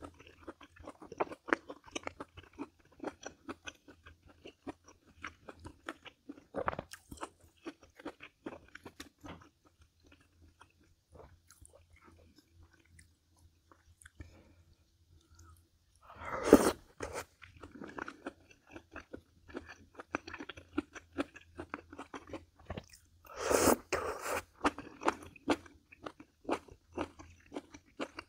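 A person chewing and crunching food: a steady run of small chewing clicks, a quieter stretch near the middle, then two louder, longer bursts, one a little past halfway and one near the end.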